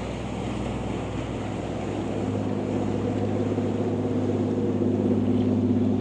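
A motorboat's engine running with a steady low drone that grows louder as the boat comes closer, over a wash of wind and surf.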